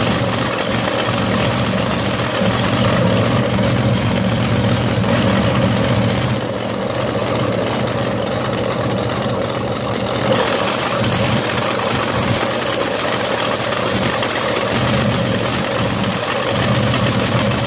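A supercharged, alcohol-burning 540 cubic inch drag boat engine idling steadily while it is being tuned. About six seconds in it drops a little quieter and duller for roughly four seconds, then comes back up.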